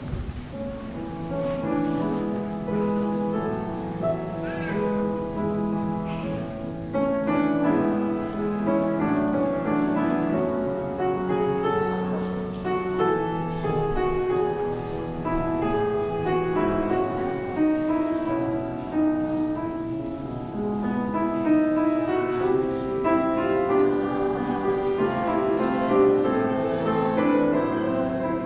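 Slow instrumental keyboard music, played in held chords that change every second or so, with no singing.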